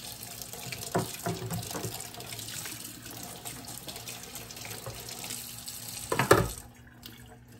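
Kitchen tap running into a sink while a blender jar is rinsed under the stream, with a knock about a second in and a louder knock just after six seconds. The water sound drops away soon after the louder knock.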